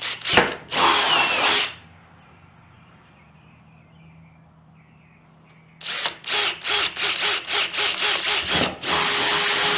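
Power drill boring crack-stop holes in a plastic hood panel, run in bursts: a run at the start, a pause, then a quick string of short spurts and a steady run near the end.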